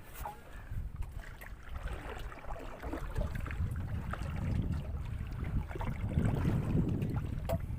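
Low rumbling wind and water noise, swelling a little near the end, with a few faint clicks and ticks over it.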